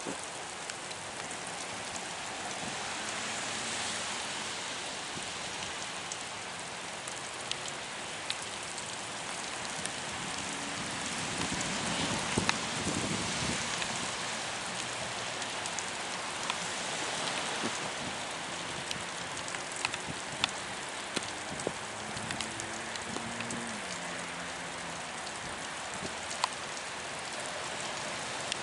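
Steady rain falling: a constant hiss with scattered sharp ticks of drops striking nearby surfaces.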